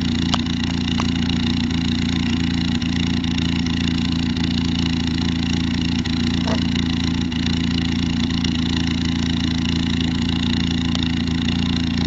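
Fiat Panda's petrol engine idling steadily, its pitch unchanging.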